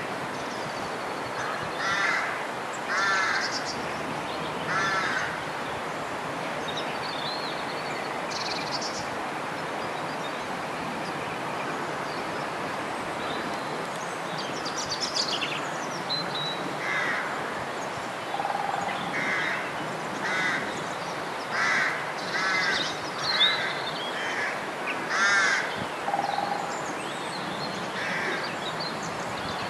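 Birds giving short, harsh, cawing calls over a steady outdoor hiss. A few calls come early, then a quicker run of them through the second half, mixed with some thinner, higher chirps.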